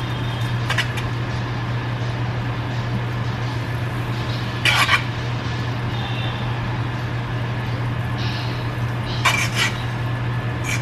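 A metal fork scraping and clinking against a nonstick frying pan as it pushes a pat of melting butter around, three times: about a second in, around the middle (the loudest), and near the end. A steady low hum runs underneath.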